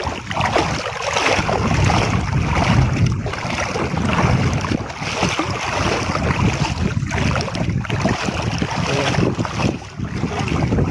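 Wind noise on the microphone mixed with water sloshing and splashing as someone wades through a shallow river, dipping briefly near the end.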